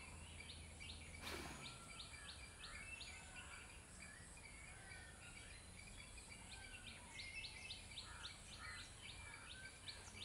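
Faint outdoor ambience with birds calling: runs of quick, short, high notes repeating several times a second, with scattered chirps over a soft steady hiss.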